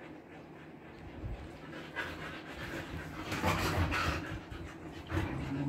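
Siberian husky panting with its tongue out, growing louder from about two seconds in. Heat-panting, which the owner notes the huskies keep doing even in an air-conditioned room.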